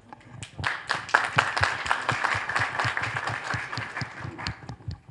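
Small audience applauding, many hand claps running together for about four seconds, then thinning to a few last claps near the end.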